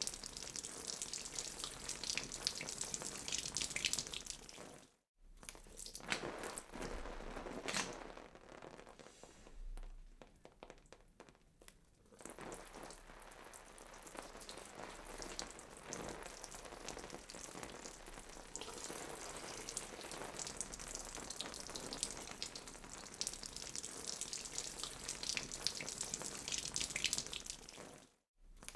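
Wet, crackling, squelching gore sound effects, of the kind used for flesh being cut. Short silent gaps about five seconds in and near the end separate the takes.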